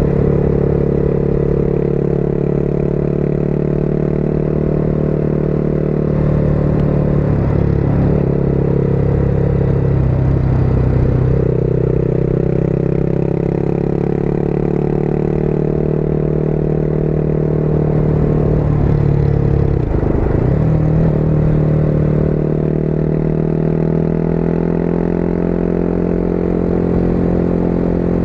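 Motorcycle engine running steadily at cruising speed, heard from the rider's seat. The engine note dips briefly and comes back up twice, about eight seconds in and again around twenty seconds in, as the throttle is eased off and reopened.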